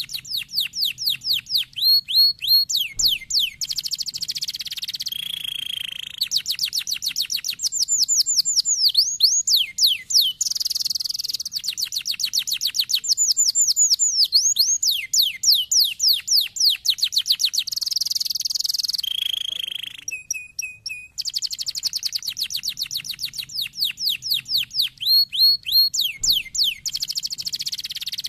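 Domestic canary singing a long, fast song of rapid trills and repeated down-sweeping whistled notes, broken about twenty seconds in by a short steady whistle and a brief pause.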